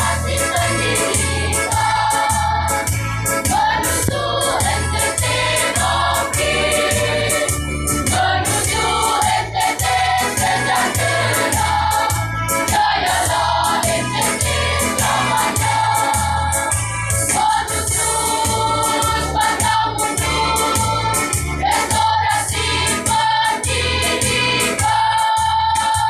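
A school choir singing a march song in unison and parts, over an accompaniment with a steady, evenly repeating low beat; the voices hold a long note near the end.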